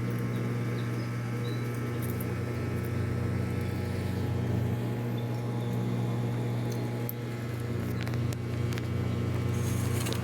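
A steady low mechanical hum, like a motor or fan running, under a faint even background hiss, with a few faint short high chirps.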